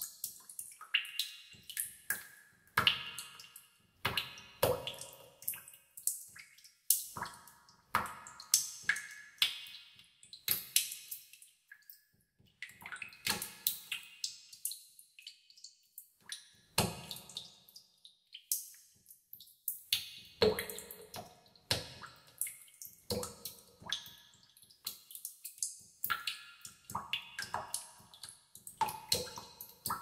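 Water drops falling into a tub of water, plinking irregularly at different pitches, a few drops a second, with a couple of short lulls.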